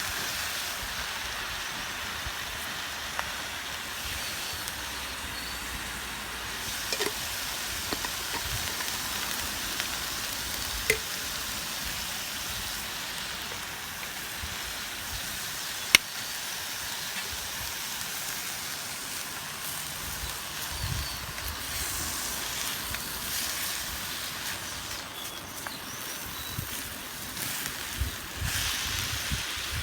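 Food sizzling steadily in a deep frying pan over a wood campfire, with a few sharp pops or crackles, the loudest about halfway through.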